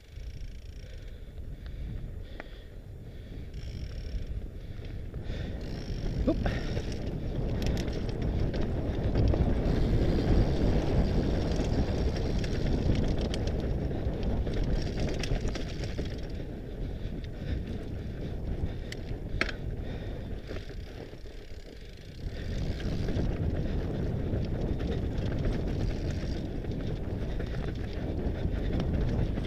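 Wind buffeting an onboard camera's microphone over the rumble of a Mondraker Panzer fat bike's wide tyres rolling on a gravel dirt track. The noise grows louder a few seconds in, eases a little past twenty seconds, then picks up again. Two sharp clicks stand out, one about six seconds in and one past nineteen seconds.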